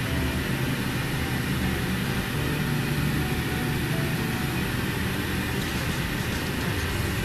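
A steady rushing noise, like air from a running fan, unbroken throughout.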